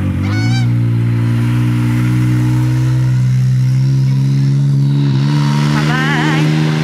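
Can-Am Maverick X3 UTV's engine running at low, steady revs, its pitch edging up a little about four seconds in.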